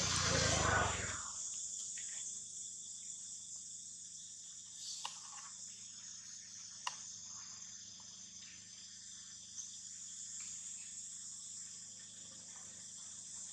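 Steady high-pitched insect chorus, with a brief rush of louder low noise that dies away about a second in and a few faint clicks later.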